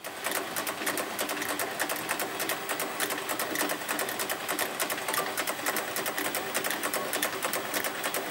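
The chest light mechanism of the original Robby the Robot prop running, making a rapid, even mechanical clatter of clicks.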